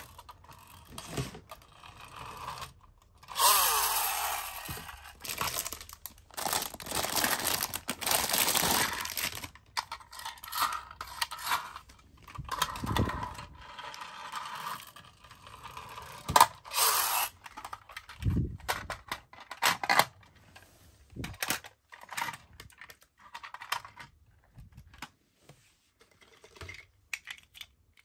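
Plastic and die-cast toy cars being handled on a wooden floor: repeated clicks and knocks as they are set down and bumped together, with longer scrapes and rolling as they are pushed along.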